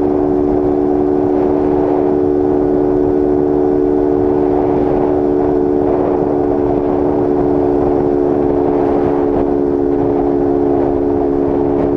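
Honda CG Start 160's single-cylinder engine running at high, steady revs with its air filter removed, cruising at about 110 km/h with wind rushing over the microphone.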